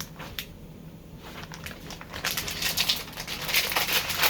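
Packaging crinkling and rustling as underwear is handled and unwrapped: a few light clicks at first, then denser crinkling from about two seconds in.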